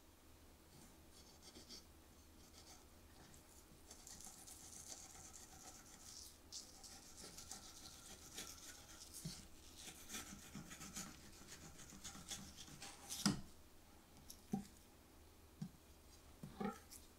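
Faint scraping and rubbing from fish preparation at a cutting board, with a sharp knock about 13 seconds in and a few lighter knocks after it.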